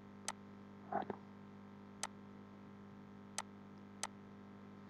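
Computer mouse clicks: four single sharp clicks spaced a second or more apart over a faint steady electrical hum, with a brief soft sound about a second in.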